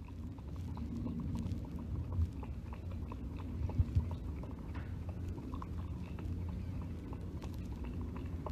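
Savannah cat lapping water from a drinking glass: a run of small, quick wet clicks from the tongue, with a couple of louder knocks around the middle, over a steady low rumble.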